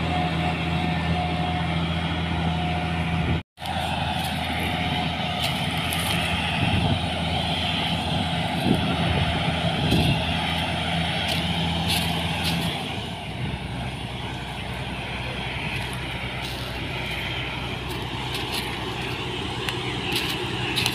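New Holland TC56 combine harvester's diesel engine running steadily while the machine moves across the field. The sound cuts out for an instant a few seconds in, and the engine note eases a little past the middle.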